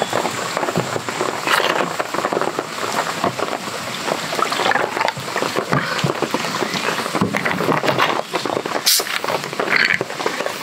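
Lemon sour concentrate and soda water poured over ice into a tall glass, the carbonated drink fizzing and crackling steadily.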